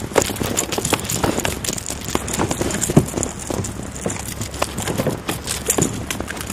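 Close handling noise as a bluefish is reeled in and brought alongside a kayak: a dense run of irregular clicks and knocks from the rod, reel and hull, with one sharp knock about three seconds in.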